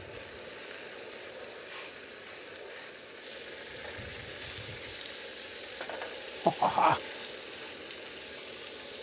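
Beef rump steak sizzling steadily on the hot griddle plate of a Primus Kinjia gas camping stove as metal tongs turn it. A brief louder sound comes about two-thirds of the way through.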